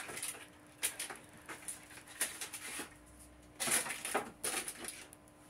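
Kitchen handling noises: a few scattered clicks and rustles, the busiest stretch a little past the middle, over a faint steady hum.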